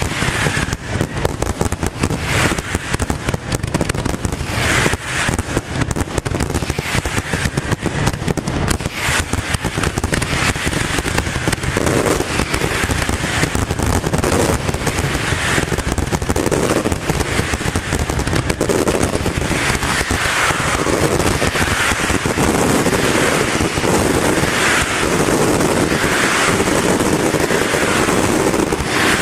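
Finale of a Fallas fireworks castillo: a dense barrage of firework bangs and crackle, the reports coming faster and faster until they merge into an almost unbroken rumble in the second half.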